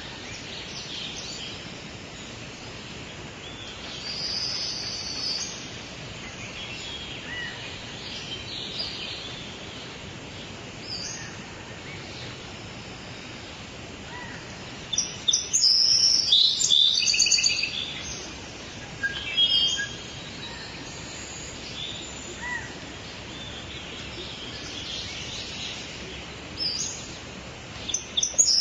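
Songbirds chirping and singing over a steady background hiss, with a loud close burst of rapid chirps about halfway through and another shortly after.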